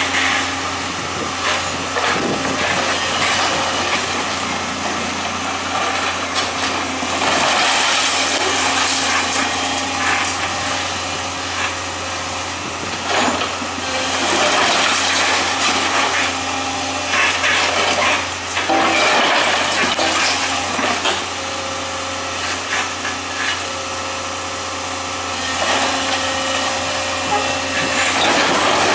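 Demolition machinery at work: a heavy engine running steadily, with louder stretches of crunching and clattering debris coming and going several times.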